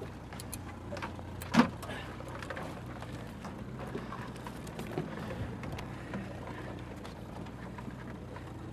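Boat motor idling with a steady low hum, under scattered light clicks and clatters of crabs being handled in a wire crab ring, with one sharp knock about a second and a half in.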